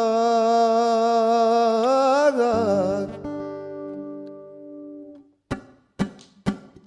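A singer holds a long, wavering note on the word 'el-khadhra' over acoustic guitar, and the voice slides down and stops about two and a half seconds in. A guitar chord rings on and fades, then a few sharp guitar strokes come near the end.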